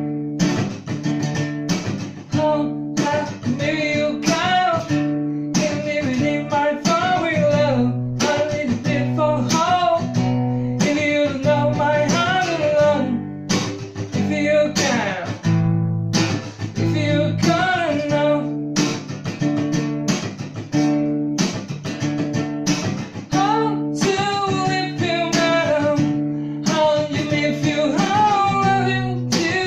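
A man singing a folk song while strumming chords on an acoustic guitar in a steady rhythm.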